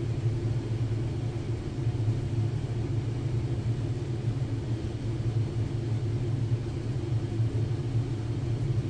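Steady low hum of background machinery, with no handling noise or other events.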